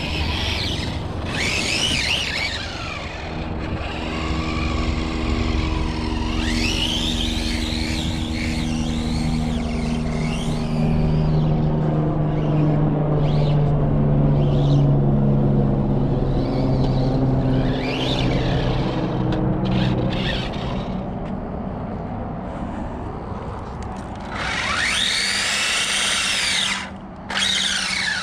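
Arrma Notorious RC monster truck's Spektrum 1250kv brushless motor and drivetrain whining, rising and falling in pitch as the truck speeds up and slows down over dirt, loudest in a burst near the end. A steady low hum runs underneath. The gear mesh still sounds a little tight to the driver.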